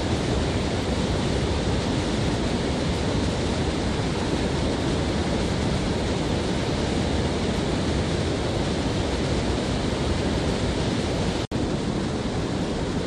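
Steady rushing of river water pouring over a low dam's spillway, with a split-second dropout near the end.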